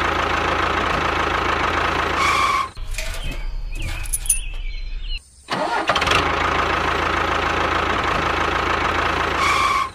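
Engine sound effect played in a loop: a louder stretch of engine running for nearly three seconds, then a quieter stretch, a short break about five seconds in, and the same sequence again.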